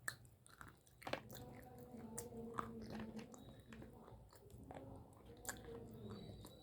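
Close-up biting and chewing of small chunks of Hyderabadi white khadi (edible white clay), with several sharp crunches of the clay breaking between the teeth.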